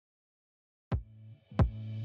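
Electronic intro music: silence, then about a second in two heavy drum hits, half a second or so apart, over a deep sustained bass note.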